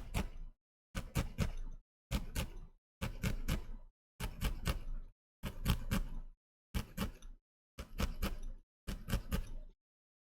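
Felting needle tool jabbing into wool on a felting pad, in short runs of three or four quick knocks about once a second, stopping near the end.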